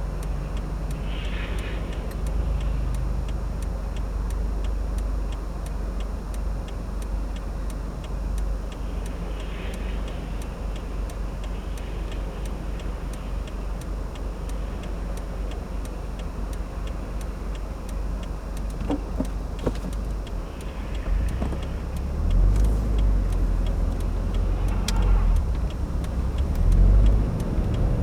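Inside the cabin of a 2015 Subaru WRX on the move: the turbocharged boxer engine and tyres on a snowy road give a steady low rumble, with a faint ticking over it. The rumble grows louder over the last several seconds as the car speeds up.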